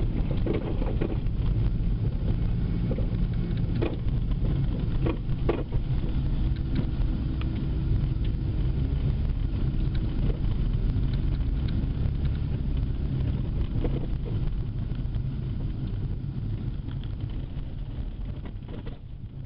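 Road noise heard inside a moving car: a steady low rumble of engine and tyres, with a few brief knocks, growing quieter near the end.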